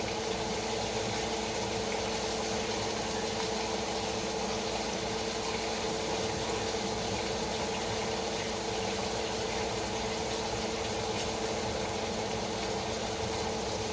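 Steady machine hum with an even hiss, holding one constant low tone throughout.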